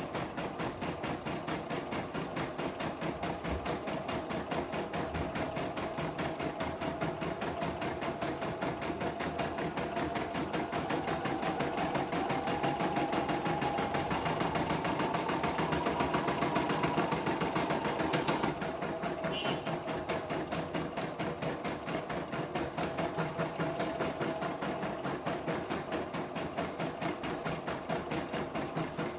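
CNY E960 computerised embroidery machine stitching out a design: a rapid, even needle rhythm. A higher motor whine rises gently from about a third of the way in and cuts off suddenly just under two thirds through, after which the steady stitching goes on.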